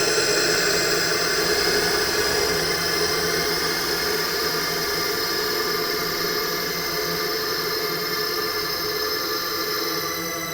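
Designed ghost sound effect: a dense, steady horror drone of hissing noise layered with many held tones, easing off slightly near the end.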